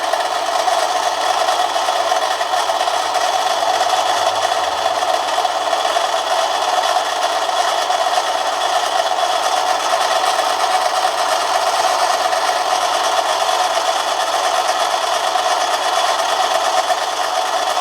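Manson lathe running steadily while turning a brass bar with a very fine cut, a continuous even mechanical whir and rasp; the cut is going fine.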